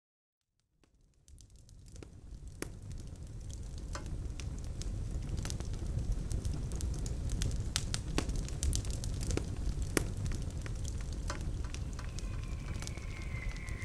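Open fire burning, fading in from silence into a steady low rumble with many sharp, irregular crackles and pops. A faint high tone slowly falling in pitch comes in near the end.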